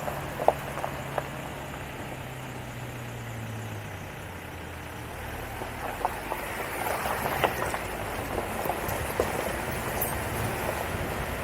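A vehicle running, with an even noise and many scattered small clicks and knocks. Steady low tones at the start die away about four seconds in.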